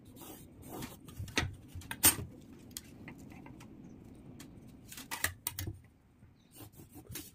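Scattered sharp clicks and light knocks of a steel ruler, pencil and measuring tape being handled and set down on a hard tabletop. The loudest knock comes about two seconds in, with small flurries of clicks near five and seven seconds.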